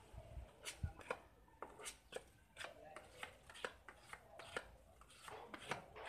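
Sandpaper rubbed by hand over a primed touch-up patch on a car bumper, making a quick, irregular run of short scratchy strokes, about two a second.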